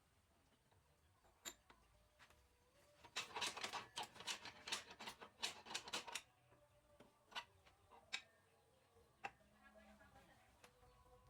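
Faint light clicks and taps, a quick run of them for about three seconds near the middle, then a few single ones.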